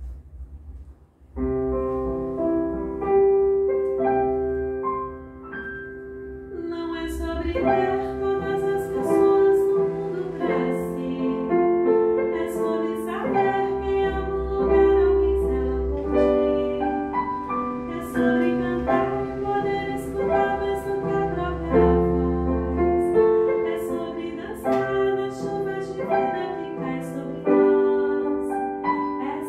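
Piano accompanying a woman singing a slow ballad. The piano starts about a second and a half in, and the voice joins a few seconds later.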